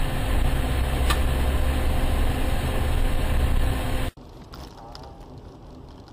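Car engine and road noise heard from inside the cabin: a loud, steady low rumble with a single click about a second in. About four seconds in it cuts off abruptly to a much quieter in-car hum.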